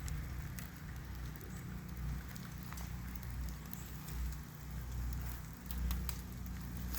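Wind rumbling on the microphone outdoors, with scattered light ticks and patters.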